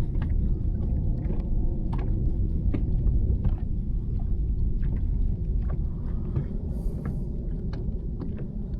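Steady low rumble on a fishing boat on the water, with scattered light clicks and taps.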